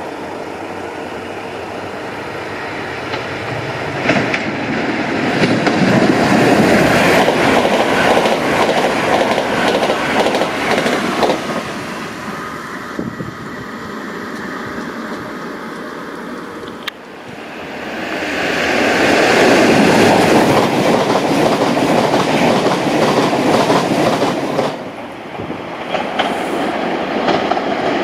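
Electric multiple-unit passenger trains passing through stations, with wheels clattering over the rails and a running rumble. The first pass swells and fades. The sound drops suddenly about two-thirds of the way in, then a second pass builds up loud.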